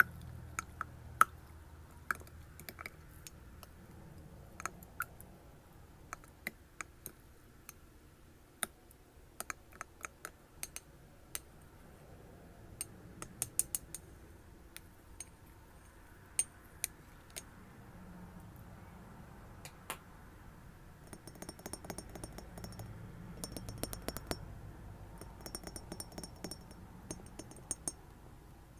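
Glass being tapped: scattered sharp taps and clinks, then from about two-thirds of the way in, quick runs of tapping with a high ringing.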